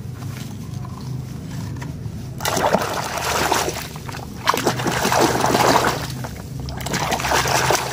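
A small plastic toy swished and rubbed by hand in a tub of water, splashing and sloshing in two long stretches, starting about two and a half seconds in. Before that it is quieter, with only a faint steady low hum.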